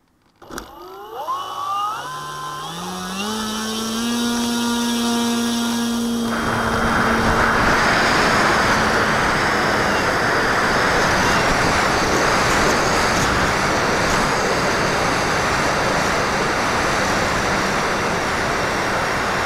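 The motor of an HK BFG radio-controlled glider spools up with a whine that rises in steps as the throttle opens. From about six seconds in it gives way to a steady rush of wind and propeller noise as the plane climbs away.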